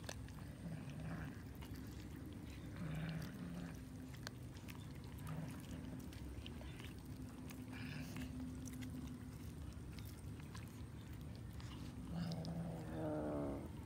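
Several cats chewing and tearing at a cooked chicken carcass, with many small wet clicks of bites and crunches. Near the end one cat gives a drawn-out call, falling in pitch.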